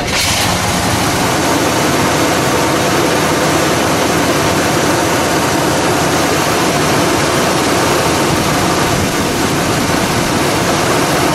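The Chevrolet Monte Carlo SS's 454 cubic-inch big-block V8 catches right at the start and then idles loudly and steadily, heard close up in the open engine bay.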